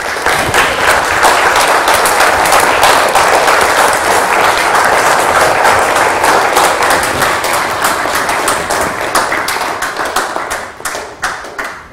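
Audience applauding: a dense, steady round of clapping that thins out to a few scattered claps near the end.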